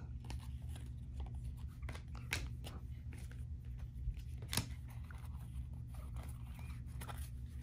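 Panini Prizm trading cards being flipped and slid against one another in the hands: a run of light, irregular clicks and rustles, with two sharper snaps about two and a half and four and a half seconds in, over a steady low hum.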